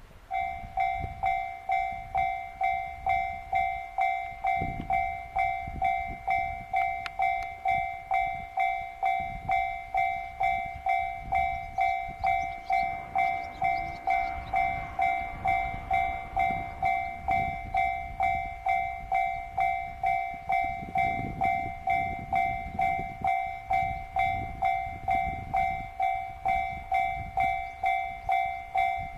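Japanese level crossing warning bell that starts up suddenly and rings steadily at about two strikes a second, the signal that a train is approaching the crossing.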